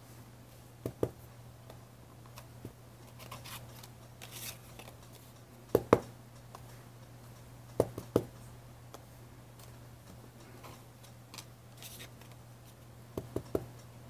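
Small round rubber stamp being inked on an ink pad and pressed onto paper tags: scattered light taps and clicks, with a pair about six seconds in and another about eight seconds in, over a low steady hum.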